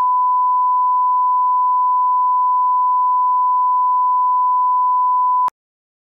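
Colour-bar test tone: a single steady beep at one unchanging pitch, stopping abruptly near the end.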